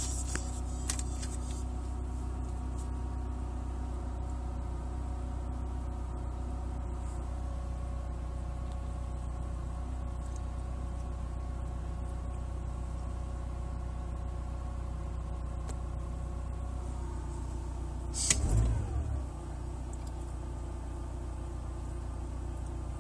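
Car engine idling steadily on a cold start: a low hum with several steady whining tones above it, which the owner suspects may come from a vacuum leak. About 18 seconds in there is a short, louder burst whose pitch falls away.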